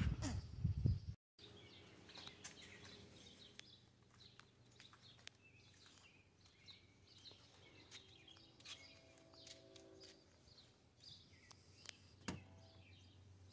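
Quiet outdoor ambience: scattered small bird chirps over a faint low hum, with a single sharp click near the end.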